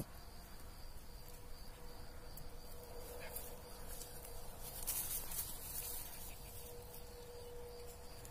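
Grassland ambience: a steady, high insect trill goes on throughout over a low steady hum, with a brief rustle about five seconds in.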